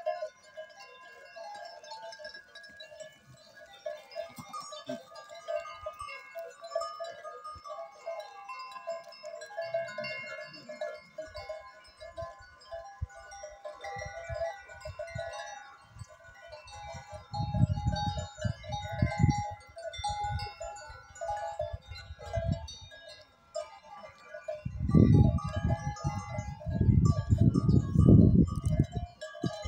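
Bells on a grazing herd of goats and sheep ringing and jingling together, with goats bleating among them. Wind buffets the microphone in loud gusts twice in the second half.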